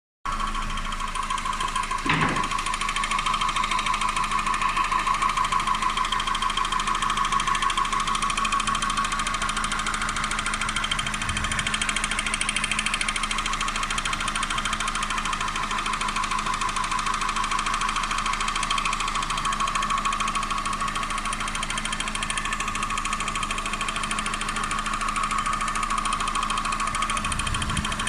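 Car engine idling with a loud, rapid, steady knock, caused by a cracked flywheel.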